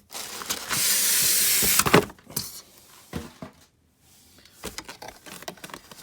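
Cardboard and styrofoam packaging scraping as a boxed carpet cleaner is pulled out of its carton: a loud, steady rub for about a second, ending in a sharp knock about two seconds in, then light rustling and clicks of packing material.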